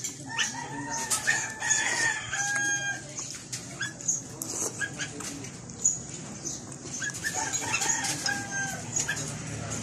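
A rooster crowing twice: a long crow of about two and a half seconds near the start, and a shorter one about seven seconds in. Between them, short clicks of a metal spoon on a ceramic plate and eating sounds.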